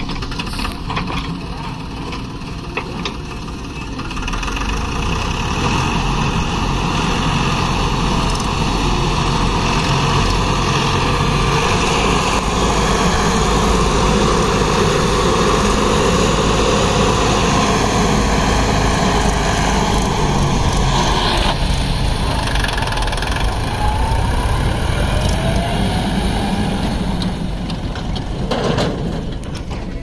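Force Sanman 6000 tractor's diesel engine working under load as it pulls a trolley heaped with mud, growing louder a few seconds in, holding steady and easing off near the end.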